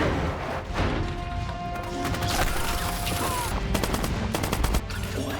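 Automatic gunfire: a rapid run of shots lasting about a second and a half, starting a little past the middle, over a film's music score.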